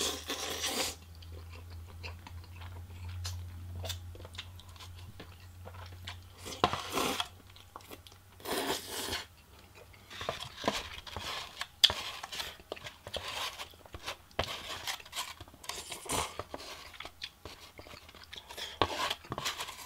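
Close-up eating sounds of jajangmyeon black bean noodles: a slurp of noodles at the start, then wet chewing and smaller slurps, with occasional light clicks of chopsticks against a foam takeout box.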